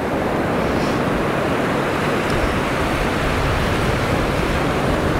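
Ocean surf: a steady rush of small waves breaking and washing up onto a sandy beach.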